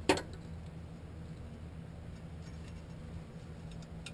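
Small metal-on-metal work on the steel bolt of a TH350 transmission's vacuum modulator bracket: one sharp metallic click at the very start, then a few faint ticks over a steady low hum.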